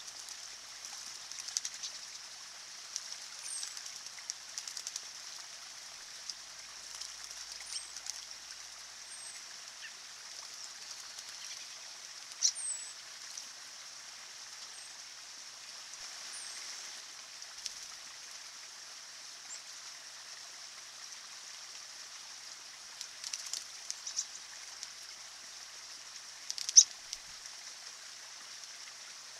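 A small man-made stream trickles steadily over rocks while American robins bathe in it. Scattered sharp splashes and wing flutters come through, the loudest about twelve seconds in and again near the end. Short, thin, high bird chirps that drop in pitch sound every few seconds.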